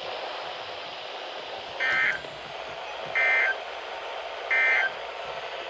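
Emergency Alert System end-of-message code on NOAA Weather Radio: three short, shrill electronic data bursts about a second apart over steady radio hiss, closing the flash flood warning broadcast.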